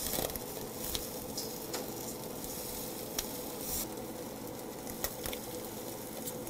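Freshwater eel fillets sizzling on a wire grill rack over the heat, with a steady faint hum underneath. A few sharp clicks come as kitchen scissors snip the eel into pieces.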